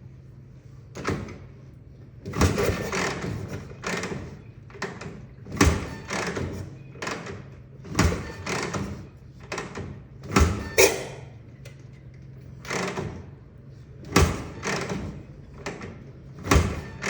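1960 Harley-Davidson FL Panhead being kicked over repeatedly, a sharp clunk on each kick followed by a brief rush of sound, several kicks a couple of seconds apart. The engine does not catch and run: a hard start when cold.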